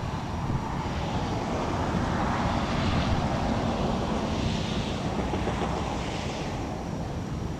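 Outdoor wind buffeting the microphone with a low rumble, under a broad rushing noise that swells through the middle and fades near the end.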